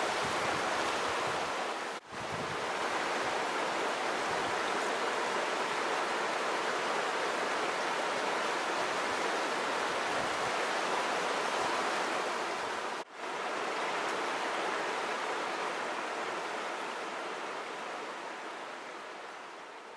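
Fast mountain river rushing over stones in shallow rapids: a steady rush of water that drops out briefly twice and fades out near the end.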